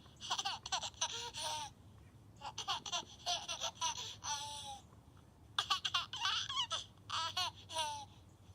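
A baby laughing and babbling in quick, high-pitched bursts, in three spells with short pauses between them.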